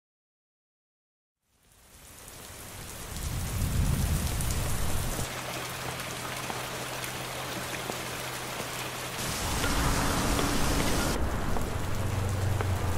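About a second and a half of silence, then the sound of steady rain fading in over a couple of seconds and holding, with a low steady hum beneath it.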